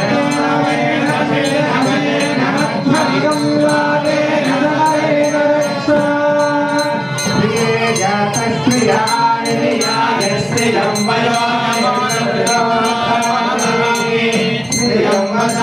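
Indian devotional music: singing with instrumental accompaniment over a steady high tick that keeps time about three times a second.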